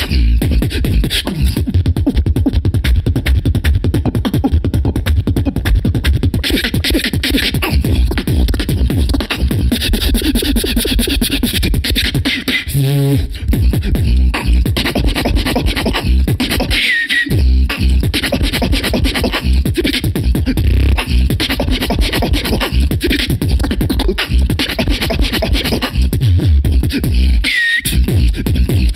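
Human beatboxing into a handheld microphone: a fast, steady rhythm of heavy bass beats under sharp clicks and hissing hi-hat sounds. There are brief breaks near the middle and near the end, with short sliding high vocal sweeps.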